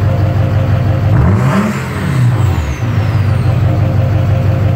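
Duramax 6.6-litre V8 turbo-diesel, DPF-deleted and exhausting through a stack, idling cold just after a cold start. About a second in it revs once, quickly rising and falling back to idle over about a second and a half, and a high whistle falls in pitch as the revs drop.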